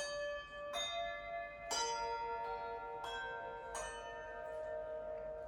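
A row of handbells rung one after another, about six strokes spaced roughly two-thirds of a second apart, each note ringing on under the next. It is one change rung down the line by learners in change-ringing practice, the row having just been altered by swapping places.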